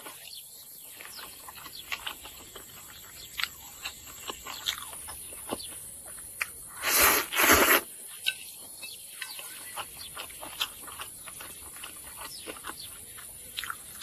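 A person slurping and chewing noodles close to the microphone: two quick loud slurps about seven seconds in, with small wet chewing and smacking clicks throughout.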